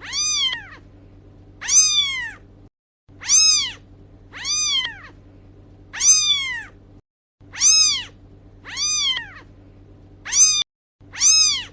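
Kitten meowing over and over, about nine short high meows, each rising then falling in pitch, with a faint steady hum beneath.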